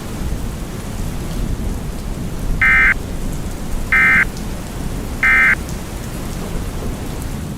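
Three short bursts of EAS end-of-message data tones, the harsh digital screech of the alert header, each about a third of a second long and spaced about 1.3 seconds apart, marking the end of the alert. Underneath runs a steady rushing background like rain.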